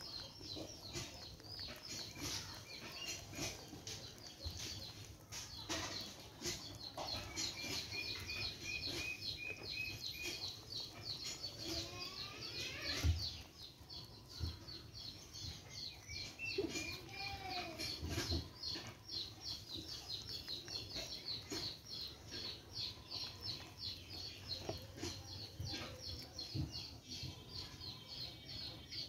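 Small birds chirping rapidly and almost without pause, with a short trill about a third of the way in and a few lower calls from fowl past the middle.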